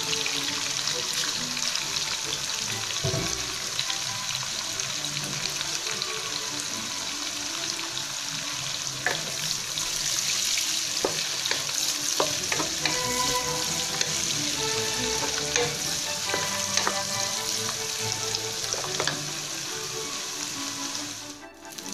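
Dried anchovies sizzling steadily in hot oil in a wok, frying until crisp, with scattered clicks and scrapes as a wooden spatula stirs them. The sizzle dips briefly near the end.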